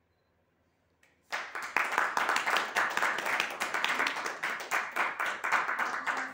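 A hush of about a second as the last cello note has died away, then an audience breaking into applause, many hands clapping quickly and irregularly.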